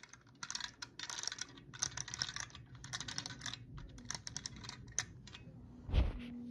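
The clockwork key of a wind-up tin robot cart toy being turned, its ratchet making rapid clicks in irregular bursts. About six seconds in there is a single thump.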